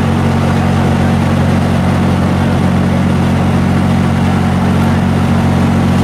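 Engine-driven mobile wood chipper running steadily at a constant speed, with a deep, even engine hum.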